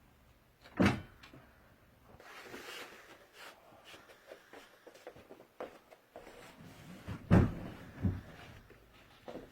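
Ottoman gas-lift bed frame being handled: a single thud about a second in as the lifting platform is lowered, then light rustling and small knocks, and two heavier thumps near the end.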